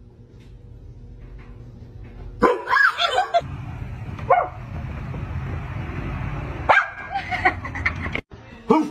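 A dog barking in short bursts: a cluster of barks about two and a half seconds in, a single one a little later, and another cluster near the end.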